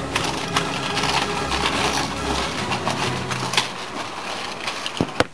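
Footsteps crunching on a gravel and tarmac path as several people walk, with irregular clicks and rustling, and two sharp clicks near the end.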